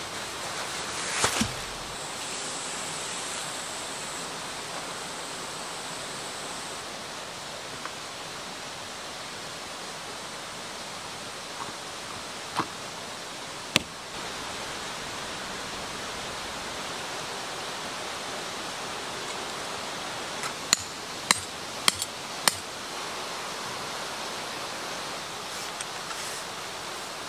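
Steady rush of flowing stream water, with a few sharp clicks and knocks: a couple just after the start, two in the middle, and a quick cluster of about five a little past two-thirds of the way through.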